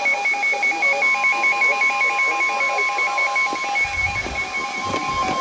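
Emergency alert tones from weather-alert receivers: a rapid beeping alarm alternating between two pitches about four times a second. About a second in, a steady single alert tone near 1 kHz joins it and holds.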